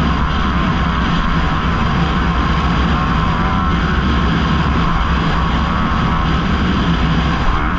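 Kawasaki KX250F motocross bike's single-cylinder four-stroke engine running loud and steady, heard from on board the bike while racing.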